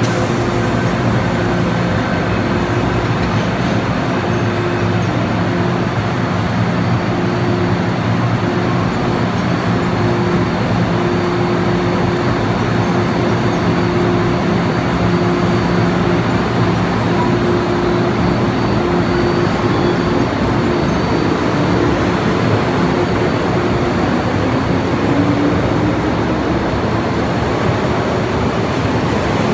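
MTR M-Train electric multiple unit standing at a metro platform with a steady hum from its equipment. Over the last several seconds a motor whine rises in pitch as the train starts to pull away.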